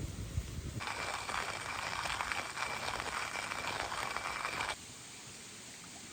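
Food sizzling on a hot iron frying-pan dish over a campfire: a dense crackling hiss that starts about a second in and cuts off abruptly near the end.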